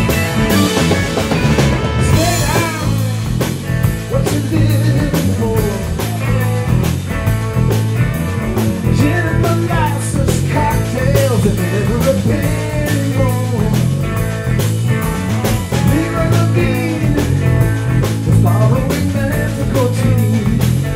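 Rock band playing live on electric guitars, bass guitar and drum kit, with a steady drum beat under gliding guitar lines.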